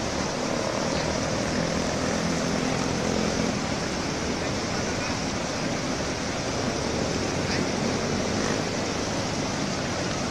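Fast river water rushing over rocks, with an off-road 4x4 jeep's engine running steadily underneath.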